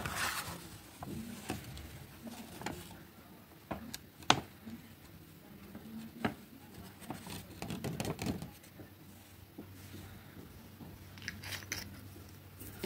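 Light handling sounds: paper rustling as loose nail glitter is tipped off a folded sheet back into its small plastic jar, with scattered light clicks and taps. One sharper click comes about four seconds in.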